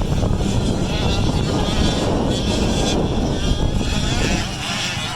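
Small 65cc two-stroke motocross bikes running, engines buzzing with wavering pitch over a dense low rumble.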